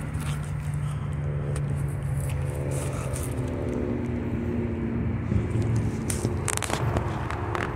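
Low, steady engine rumble, with pitched tones that slide slowly downward through the middle and a few sharp clicks near the end.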